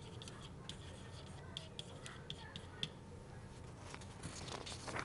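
A stylus writing on a pen tablet or interactive board: faint, light taps and scratches of handwriting strokes, with a louder scratchy stroke near the end.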